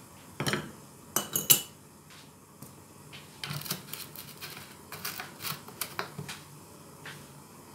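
Kitchen utensils and dishes being handled: a run of separate clinks and clatters on a hard surface, loudest about a second and a half in, with more scattered knocks through the middle.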